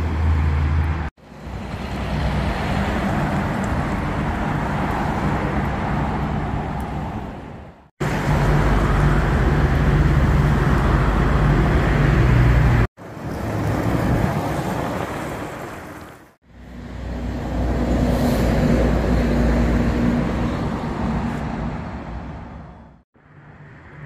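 Road traffic passing close by on a highway: cars and other motor vehicles drive past one after another, the engine and tyre noise swelling and fading with each. The sound breaks off abruptly several times.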